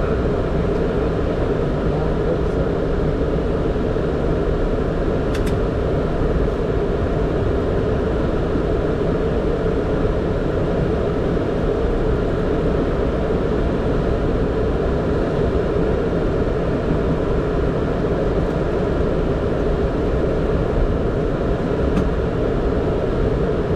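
Steady flight-deck noise of a Boeing 767 on the ground after landing: an even rumble from the engines and air systems, with a hum running through it.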